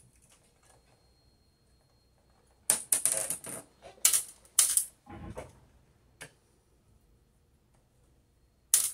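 Small metallic clicks and rattles of hand disassembly on a printer's metal chassis: a quick burst of rattling about a third of the way in, two sharp clicks and a dull knock after it, then a lone click and another near the end.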